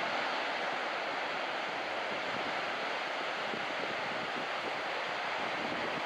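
Steady wash of breaking surf on a beach break, an even hiss of waves with no let-up.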